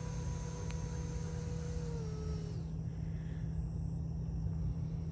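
Electric ducted fan of a Freewing BAe Hawk 70 mm RC jet (XRP 2200kv motor) whining in flight, over a low rumble. Its steady tones drop in pitch and fade about two and a half seconds in.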